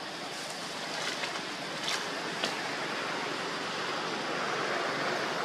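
Steady rushing noise of wind outdoors, with a few faint short crackles about one to two and a half seconds in.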